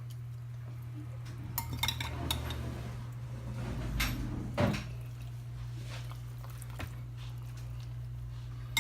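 A spoon clinking and scraping against a bowl while chopped apple, orange and garlic stuffing is scooped into a duck's cavity: a few sharp clinks about two seconds in, then a duller scrape and knock around four seconds in. A steady low hum runs underneath.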